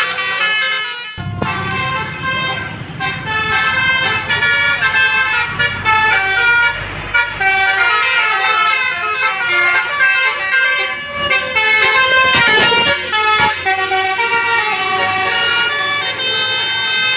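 Telolet horn: a set of multi-tone air horns sounding several pitches at once and stepping through a quick melody, with a vehicle engine running low underneath from about a second in.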